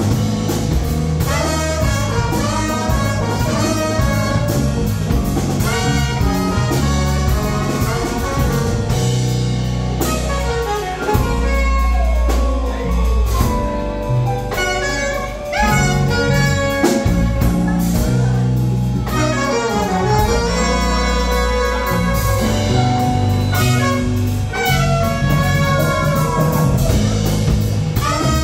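Live jazz band playing: a horn section of trumpet, alto and tenor saxophone and trombone carries the melody over drum kit, piano and bass.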